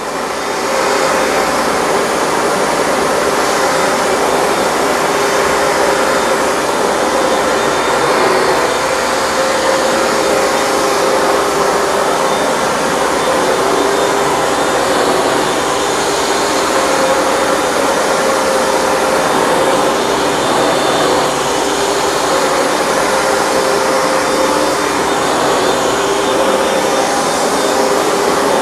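Hoover Dual Power Max upright carpet cleaner running steadily during a wet cleaning pass: a constant rush of suction with a steady motor hum underneath.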